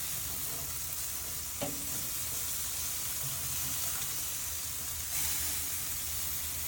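Chicken pieces and filet mignon sizzling steadily on a hot grill, with a single sharp click about a second and a half in.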